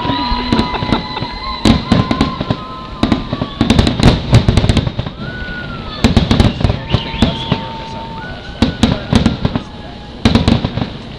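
Fireworks display: dense volleys of sharp bangs and crackling reports, thickest about four and six seconds in, with long whistling tones hanging over them.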